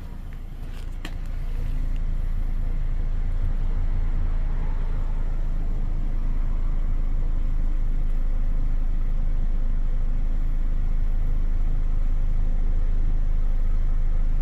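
2009 Chevy Cobalt's four-cylinder engine idling, heard at the exhaust. The exhaust note is steady and even with no misfire, now that a faulty ignition coil pack has been replaced. It grows louder over the first couple of seconds as the exhaust is approached, then holds level.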